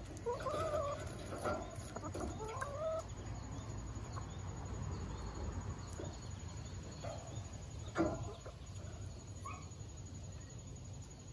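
Hens clucking, a run of short pitched calls over the first three seconds, then a brief sharp sound about eight seconds in and one more short call, over a steady low background rumble.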